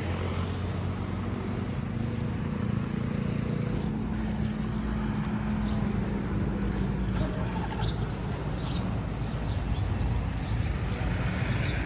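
A passing road vehicle's engine hum that fades out over the first seven seconds or so, with small birds chirping repeatedly from about four seconds in.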